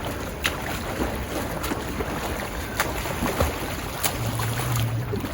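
Swimming-pool ambience: a steady rush of water noise and wind on the microphone, broken by a few sharp knocks.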